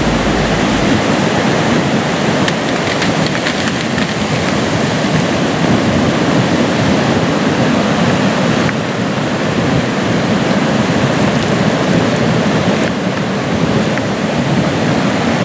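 River in full flood rushing past, a loud, steady noise of turbulent floodwater.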